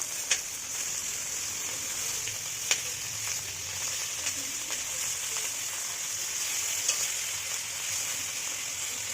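Banana-leaf-wrapped hilsa paturi parcels frying in oil in a pan: a steady, high sizzling hiss with a few sharp pops and crackles.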